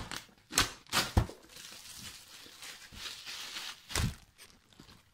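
Plastic shrink-wrap being cut and torn off a board-game box: a few sharp knocks and clicks in the first second or so, then a long crinkling rustle of plastic, and a knock about four seconds in.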